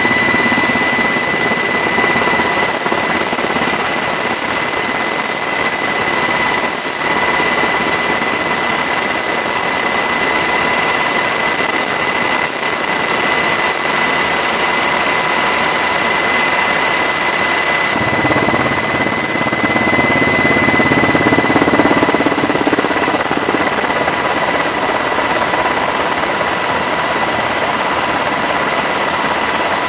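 Steady helicopter noise heard from aboard: a constant rush of engine and rotor noise with a steady high whine from the turbine and gearbox. Its tone shifts a little about eighteen seconds in.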